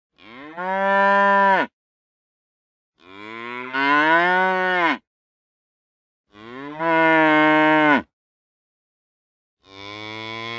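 Heifer mooing: four separate moos of about one and a half to two seconds each, with dead silence between them. Each moo starts softer, grows louder partway through and drops in pitch as it ends; the last is still going at the end.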